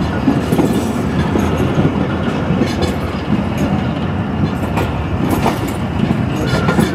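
Pak Business Express passenger train running along the track, heard from aboard a coach: a steady rumble of the wheels on the rails with a few sharp clacks from rail joints.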